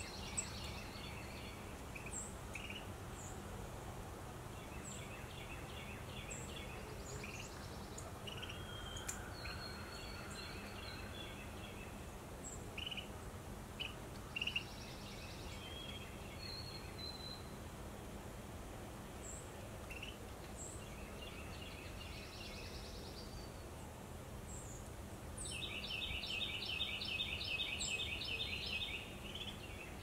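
Wild songbirds calling and singing: repeated short trills and high, thin chips over a steady outdoor background hiss, with a louder, rapid trill lasting a few seconds near the end.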